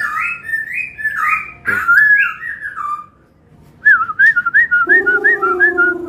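Black-throated laughingthrush (poksai Hongkong) singing loud whistled phrases that glide up and down, pausing briefly. It then breaks into a quick run of repeated rising notes, about four a second. A low drawn-out tone sounds under the run for about a second near the end.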